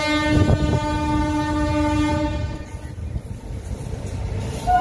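Train horn sounding one long, steady blast that stops about two and a half seconds in, over a low rumble; a second blast starts right at the end.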